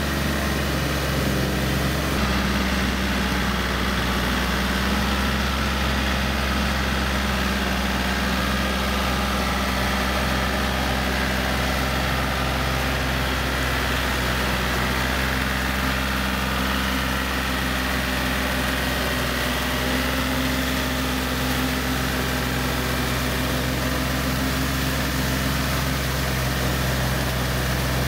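Yanmar EF393T four-wheel tractor's diesel engine running steadily under load as it drives a rotary tiller through wet paddy mud.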